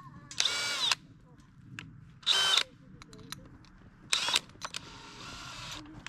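DeWalt DCD996 20V Max XR brushless hammer drill run in three short trigger pulls, its motor whining up and down briefly each time, with a quieter, longer run near the end.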